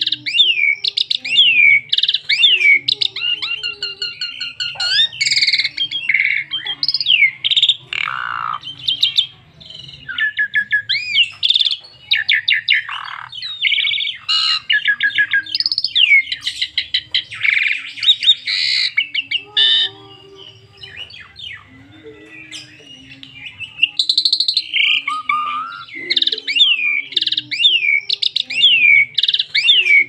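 A caged Javan pied myna (jalak suren) singing a long, varied song of rapid whistled notes, glides and chattering trills, with brief quieter lulls about a third of the way in and again past the middle.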